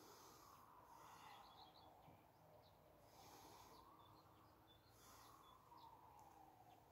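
Near silence: a faint hiss that slowly rises and falls, with a few faint, short high chirps.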